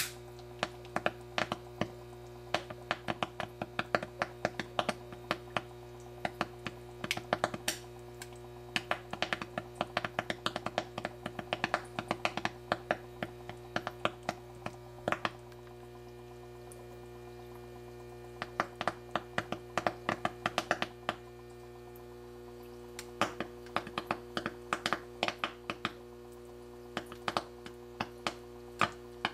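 Small gas bubbles rising from a submerged tube popping sharply as they reach a lighter flame at the mouth of a water-filled glass jar, in irregular clusters of several pops a second with two short lulls. A steady low hum runs underneath.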